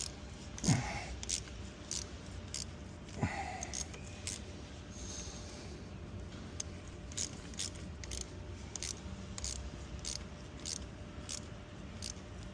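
Hand tap being turned in a steel hole to cut thread for a coil thread insert, giving irregular sharp metallic clicks as it cuts, with two louder creaks about a second in and about three seconds in.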